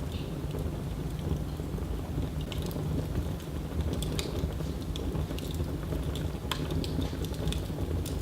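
Wood fire burning in a fireplace, crackling: scattered sharp pops and snaps, more frequent in the second half, over a steady low rushing noise.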